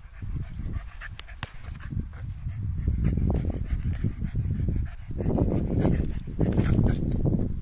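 Pembroke Welsh corgi panting close by, getting louder about three seconds in and again about five seconds in, with a few sharp clicks.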